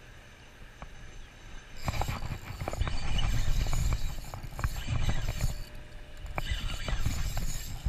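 Spinning reel being cranked, a run of small clicks and rattles over rumbling handling and wind noise on the microphone, starting about two seconds in.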